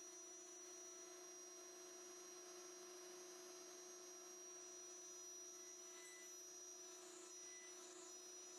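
Faint, steady hum of a 2.2 kW water-cooled CNC spindle running at speed while it mills wood.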